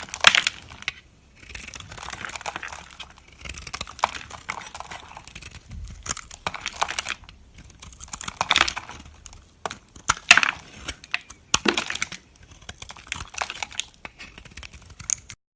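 Knife cutting through dry soap: a series of crisp, crackling scraping strokes about a second each, the loudest near the start and again about eight and ten seconds in. The sound cuts off suddenly near the end.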